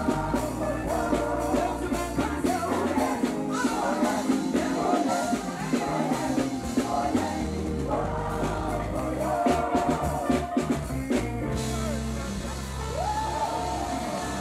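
Live gospel music: a woman singing lead over a band with keyboard, bass and drums, the drums keeping a steady beat. Near the end a note slides up and is held.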